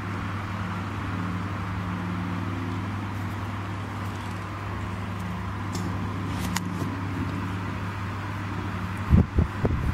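Domestic cat purring close to the microphone: a steady, low, rapidly pulsing rumble that swells and eases with its breathing. A few knocks near the end.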